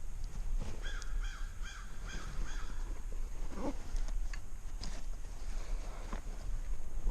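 An American crow cawing, a quick series of about six harsh calls starting about a second in, over a steady low rumble.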